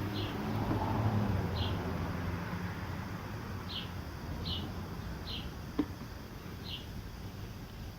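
A small bird chirping, short high chirps at irregular intervals, over a low steady background rumble. There is a single sharp click a little before six seconds.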